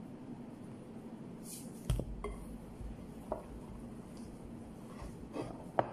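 Hands mixing a ground chicken kofta mixture in a glass bowl, with a few knocks and clinks against the bowl. The loudest comes about two seconds in and another just before the end. A steady low hum runs underneath.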